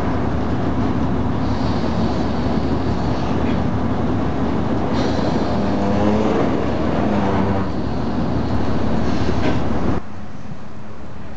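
Diesel engine of the Talbot railcar T44 running loudly inside the cab as the railcar rolls through the station, with a thin high whine coming and going. About ten seconds in, the sound drops suddenly to a quieter, steady engine hum.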